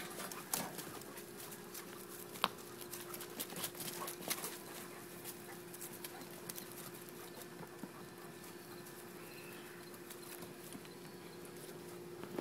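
Doberman Pinscher puppies at play: scattered light taps and clicks, busiest in the first half, over a steady faint hum.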